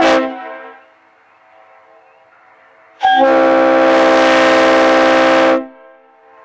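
Leslie RS-3L three-chime train horn blown on compressed air: a short toot, then about three seconds in a long blast of about two and a half seconds, each chord ringing off in an echo.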